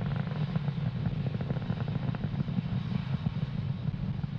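Falcon 9 first stage's nine Merlin 1D engines firing during ascent: a steady low rumble thick with crackle.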